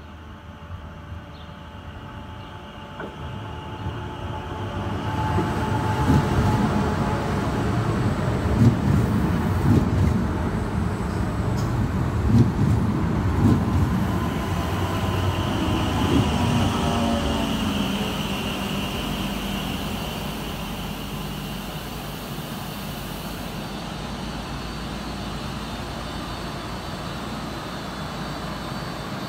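Stadler ABe 4/12 low-floor electric multiple unit of a metre-gauge railway approaching and running in. The sound grows over the first few seconds, with irregular knocks from the wheels on the track, and the electric drive's whine falls in pitch as the train slows. A high steady tone runs through the middle, then the train settles into a steady hum for the last ten seconds or so.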